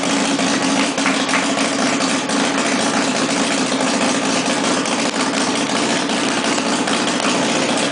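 Formula SAE race car engine running at a steady idle on its first start-up, loud and even, with frequent sharp ticks through the running.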